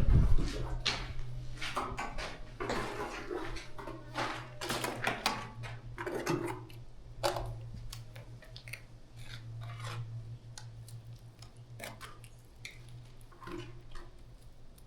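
Metal trowel scraping and knocking on wet cement and stone as a stone window sill is bedded: irregular clinks and scrapes, busiest in the first half, over a steady low hum.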